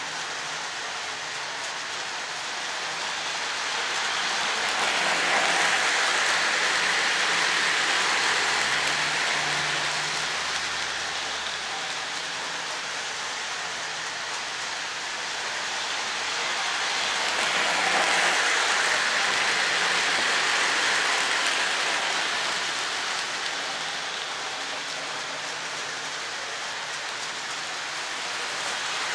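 A Lionel GE U36C O-gauge model locomotive hauls a string of metal-wheeled coal hoppers around the track, making a continuous rushing, rattling rumble of wheels and motors. It swells twice as the train comes around close to the microphone, then fades as it runs off to the far side of the loop.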